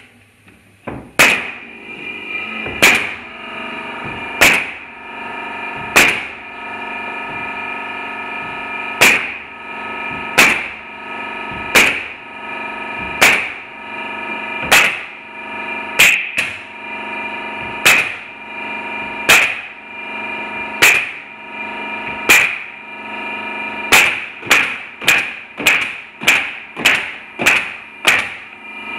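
MAX standard-pressure pneumatic coil nailer firing nails through plywood floor panels, one sharp shot about every second and a half, then a quicker run of about two shots a second near the end.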